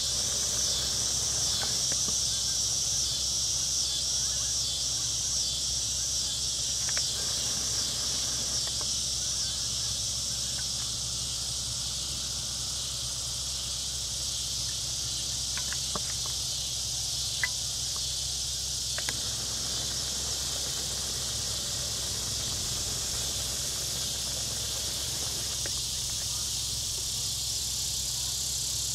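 Steady high-pitched chorus of summer insects, pulsing about twice a second for the first several seconds and then evening out, over a low steady rumble, with a few faint clicks a little past halfway.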